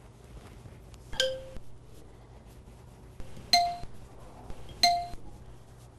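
A ceramic dinner plate clinking three times as small hand-rolled meatballs are set down on it: three short, ringing clinks, one about a second in and two more a second or so apart later on.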